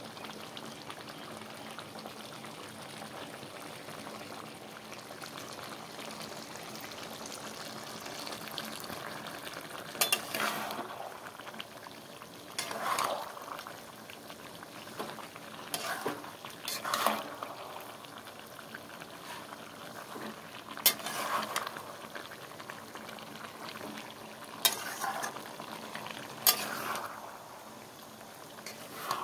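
Chicken curry with potatoes and onions sizzling in a steel pot as it is fried down, with a steady sizzle. A metal spatula stirring it scrapes and clanks against the pot every few seconds.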